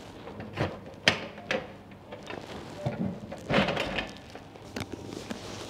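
Small shoe locker door clicking open and a boot being put inside: a few sharp clicks and knocks, the loudest about a second in, then a longer clatter and rustle about three and a half seconds in.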